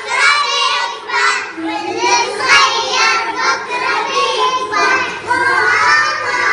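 Young children singing a nasheed together, in high voices with short breaks between phrases.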